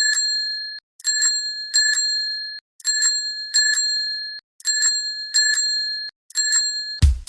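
A high-pitched bell rings in pairs of strikes, one pair about every two seconds, each ring cutting off before the next pair. Near the end, dance music with a heavy beat comes in.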